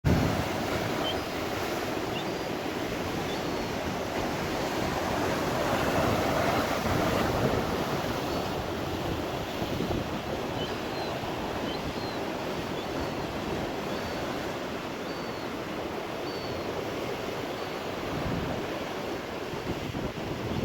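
Rough sea: heavy surf breaking and rushing without pause, with wind gusting on the microphone. Faint, short, high cries of young gulls begging for food come again and again over the roar.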